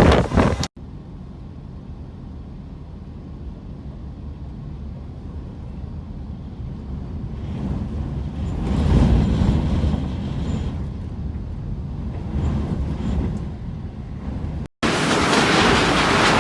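Typhoon wind blowing across the microphone, heard as a loud rushing hiss that cuts off abruptly about a second in. It gives way to a quieter low rumble that swells in gusts around the middle, then cuts back to a loud rush of wind near the end.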